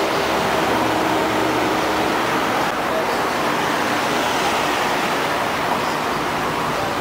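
Steady car and street traffic noise, an even wash with a faint low hum and no sudden events.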